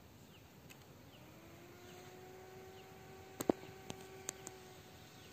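Small 12-volt DC cooling fan running off a solar battery, a faint thin hum; it sags and fades near the start, then rises back in pitch and holds steady. A few sharp clicks sound in the second half.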